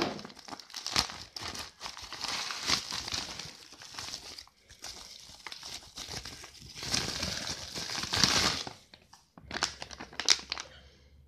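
Plastic packaging crinkling and rustling as a parcel is opened by hand: a plastic mailer, then bubble wrap and a plastic snack bag, in irregular crackly handling noise that dies away near the end.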